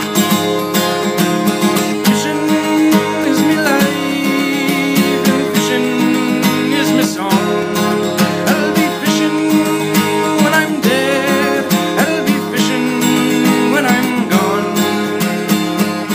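Instrumental break of an Irish folk ballad: an acoustic guitar strummed steadily under a lead melody line that wavers and bends in pitch.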